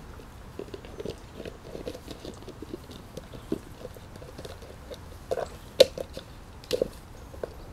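Seven-week-old puppies grunting and chewing at an empty plastic container as they tussle over it, with a run of short clicks and crackles of the plastic under their teeth. The sharpest, loudest crackles come about five and a half, six and seven seconds in.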